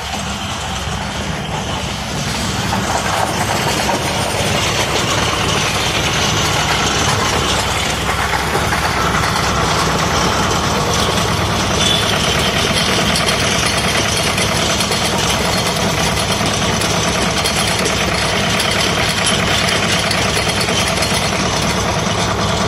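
High-pressure washer running steadily, its pump motor humming under the hiss of the water jet as foam is rinsed off a car. It gets louder about two and a half seconds in.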